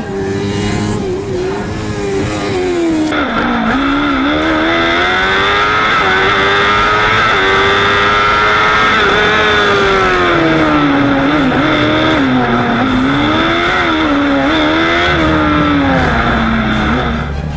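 Formula Student race car's engine revving, its pitch rising and falling over and over as the car is driven hard around a cone course. From about three seconds in it is heard close up, from a camera mounted on the car.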